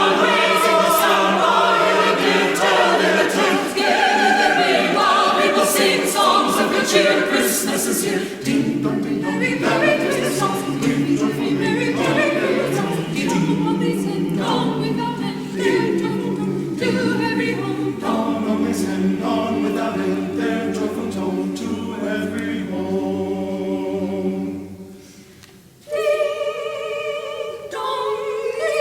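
Church choir singing a Christmas song. The music dies away about 25 seconds in, and a new passage of held notes begins about a second later.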